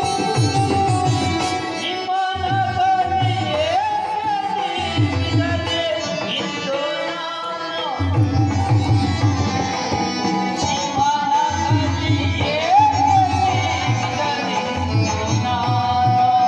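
Indian-style music with tabla: a rhythmic drum pattern under a melody of long held notes that slide up in pitch twice, once about four seconds in and again near thirteen seconds. The drumming drops out briefly about two seconds in and again from about six to eight seconds.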